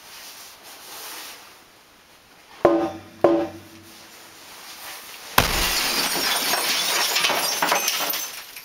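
Two sledgehammer blows on a tarp-covered CRT television, each ringing briefly off the glass, then a third blow breaks the picture tube: a sudden loud crash and about three seconds of glass shattering and falling.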